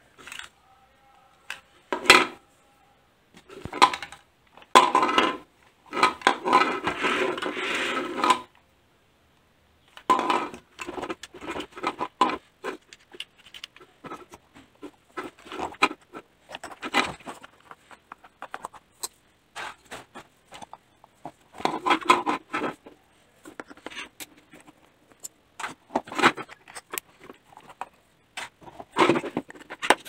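Irregular clicks, knocks and scrapes of plastic parts being handled as a toy RC car is taken apart, with a longer scraping rattle about six to eight seconds in.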